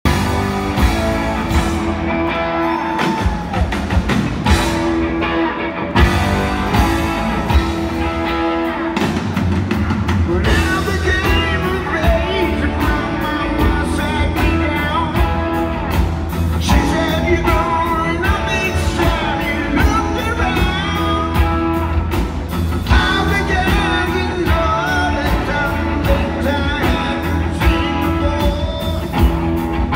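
Rock band playing live: electric guitars, bass and drum kit, with a man singing lead over the band from about ten seconds in.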